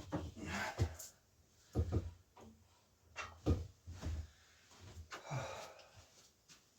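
Hand tools and bike parts being handled at a workbench: scattered clicks and knocks with short rustling noises in between, some eight or nine separate sounds.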